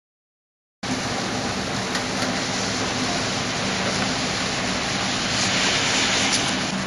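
Heavy rain pouring steadily during a thunderstorm, cutting in suddenly about a second in after silence.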